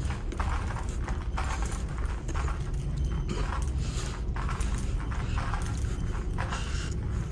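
Footsteps on a hard floor, about two steps a second, over a steady low rumble.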